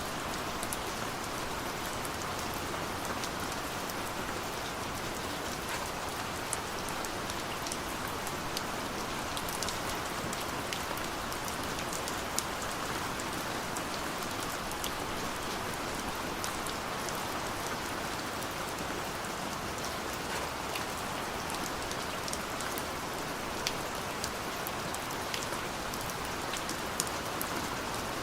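Steady rain falling: a constant dense hiss with many individual drops ticking sharply through it.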